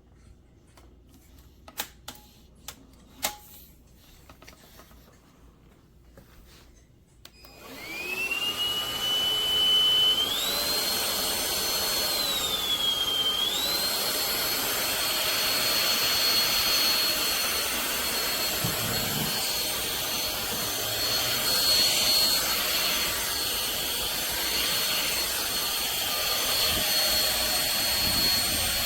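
A few sharp clicks, then a cordless stick vacuum's motor starts about a quarter of the way in. Its whine rises and then runs steady with a strong rush of air, its pitch dipping once and coming back shortly after it starts.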